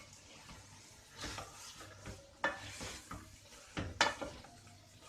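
Sliced onions sizzling as they fry in hot oil in a large pot, stirred with a spoon that scrapes the pan in a few irregular strokes, the loudest about two and a half and four seconds in.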